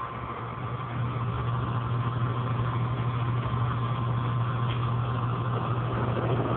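A steady low mechanical hum, a little louder from about a second in.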